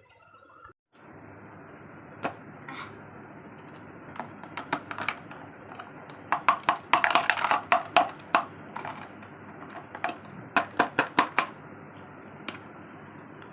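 Small electric cooler fan running with a steady whir, with bursts of light plastic clicks and taps on top, most of them in two clusters around the middle and later on.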